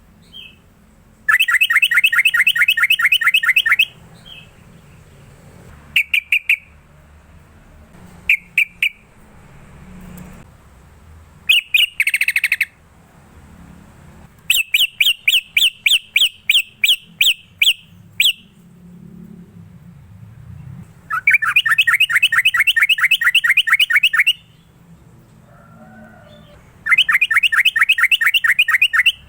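Yellow-vented bulbul (trucukan) singing loud runs of rapid, evenly repeated chattering notes, each run lasting a few seconds. Short two- or three-note calls come in the gaps, and one run about halfway through is slower and more spaced out.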